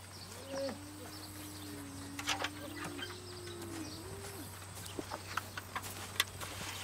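A long, faint, wavering animal call at a low pitch, starting about half a second in and ending after about four seconds, set against quiet farmyard background with a few light clicks.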